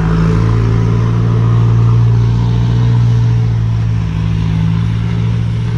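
An engine running at a steady speed: a loud, low, even drone that holds one pitch.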